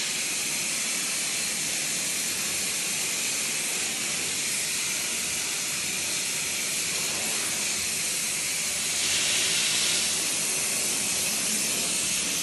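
Steady hiss of gas at copper medical-gas pipework being brazed, from the brazing torch or the gas flowing through the pipes, swelling louder for about a second around nine seconds in.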